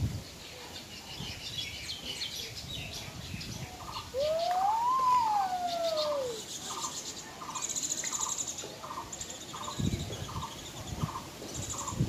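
Birds calling: high, rapid chirping chatter of baya weavers, then one loud whistled note about four seconds in that rises and then falls, followed by short notes repeated about twice a second.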